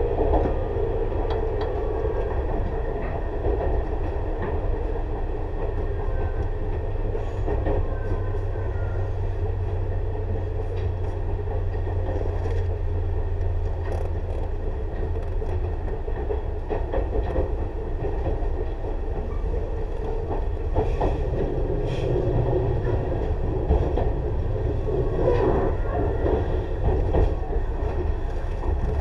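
Tobu 6050 series resistor-controlled electric train running, heard on board motor car MoHa 6169 with its TM-63 traction motors. A steady low rumble of wheels and under-floor equipment, with scattered light clicks.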